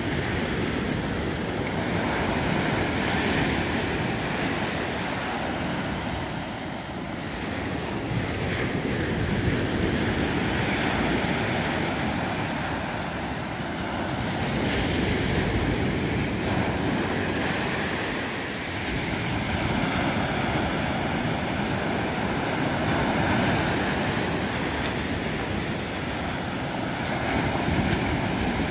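Ocean surf breaking and washing up a sandy beach, a steady rushing wash that swells and eases with each incoming wave.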